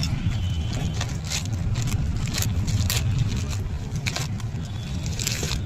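Small items and their packaging being handled: scattered light clicks, clinks and rustles over a steady low rumble.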